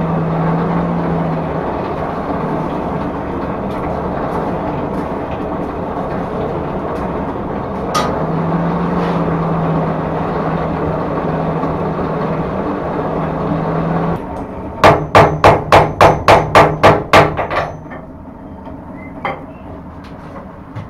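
Forge running at a welding heat with a steady roar and a low hum that comes and goes. About fifteen seconds in, a quick run of about ten hammer blows on the anvil in under three seconds, after which the roar is much quieter.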